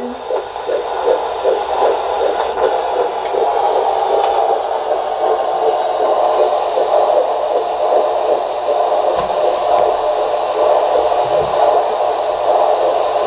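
Fetal heartbeat at 13 weeks picked up by a Doppler monitor: a fast, regular pulsing through a steady hiss, clear and strong.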